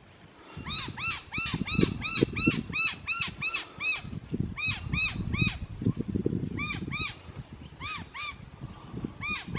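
A bird calling in fast runs of short rising-and-falling notes, about four a second, pausing between runs, over a low uneven rumble.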